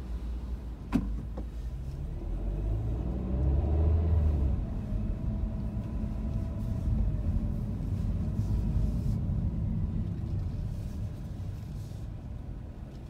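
Car engine and road rumble heard from inside the cabin as the car pulls away from a stop, the engine rising in pitch and loudest about four seconds in, then settling and easing off. A single sharp click about a second in.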